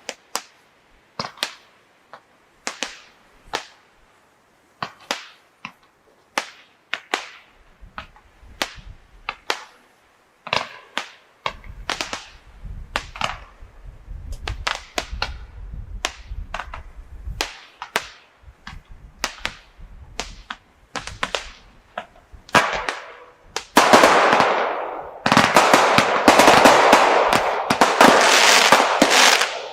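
Consumer fireworks going off: a long run of sharp, separate cracks and bangs, some with a short crackling tail. About 23 seconds in they build into a dense, loud crackle that keeps going.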